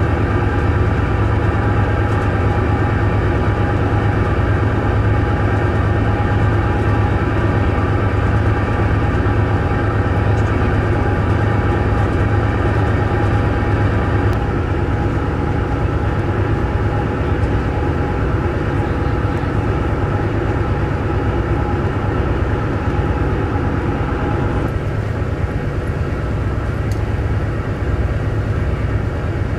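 Steady drone of the ferry Osprey 2000's diesel engines while under way, a strong low hum with several steady tones above it. The mix shifts slightly about halfway through and again near the end.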